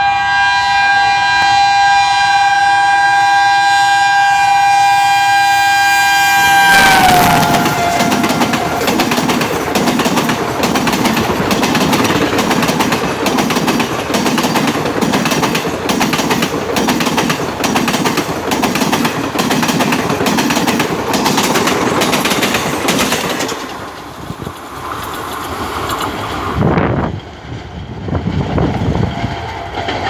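Alco diesel locomotive's horn sounding one long, continuous blast as the express approaches at full speed. Its pitch drops as the locomotive passes, about seven seconds in, and the horn cuts off a second later. Then the coaches rush past with a loud, rapid clickety-clack of wheels over the rail joints, which falls away after about twenty-three seconds as the train goes by.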